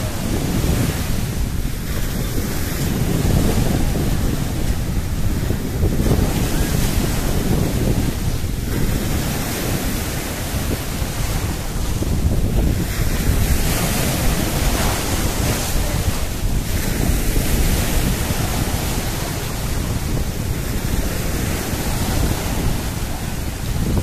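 Rough Black Sea surf breaking and foaming up the shore and around large boulders, rising and easing in repeated surges, with wind rumbling on the microphone.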